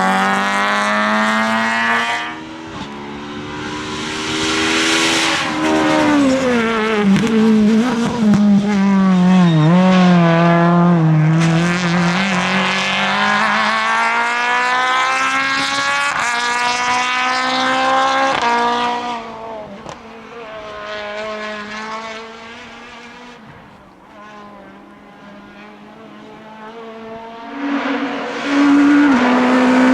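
Group F2000 rally cars with naturally aspirated engines driven flat out on a stage. The engine note climbs and drops sharply at each gear change and lift, fades away about two-thirds of the way through, then comes back loud near the end as another car arrives.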